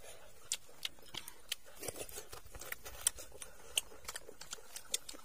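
Eating sounds: irregular crisp clicks and crunches, a few a second, from chewing and handling fresh lettuce and grilled fish.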